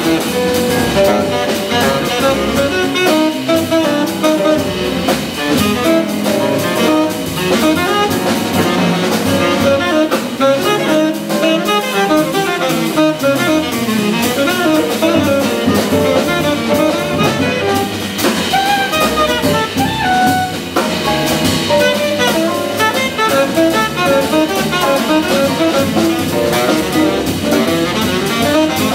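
Live jazz quintet playing a hard bop tune: saxophone carrying the lead line over double bass and drum kit, with guitar and piano in the band.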